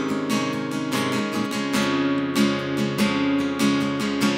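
Acoustic guitar strummed in a steady rhythm, about two to three strokes a second, playing the instrumental accompaniment of a worship song between sung lines.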